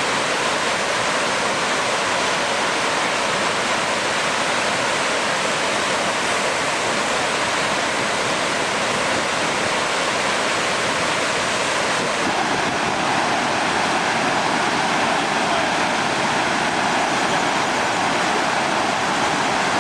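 Steady, loud rush of water during the flood, with a slight change in its tone about twelve seconds in.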